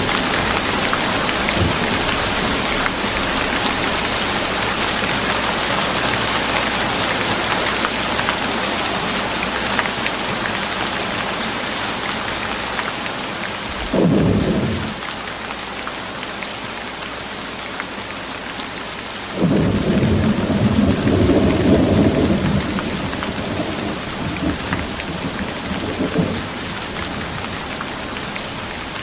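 Steady rain hiss that eases slightly about halfway, with a short low thunder rumble at that point and a longer rolling thunder rumble lasting several seconds later on.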